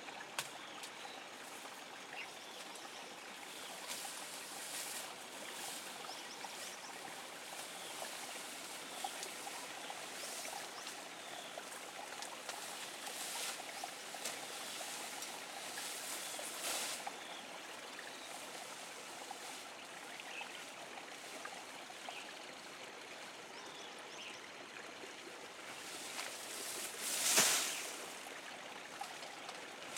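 Steady trickling of running water, with one brief louder whoosh near the end.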